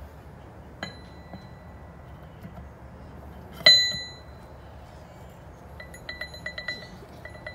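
Steel ring gear and parts of a 2005 Honda Rubicon rear final drive clinking against the case as the gear is seated. There is a light clink about a second in, a loud ringing clink near four seconds, then a quick run of small ticks. Each rings on at the same high pitches.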